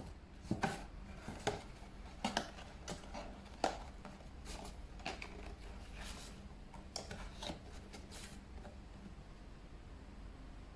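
Paperboard cupcake box being folded shut by hand: card rustling and creasing, with sharp clicks as the flaps are pushed and tucked into place, busiest in the first four seconds and softer after.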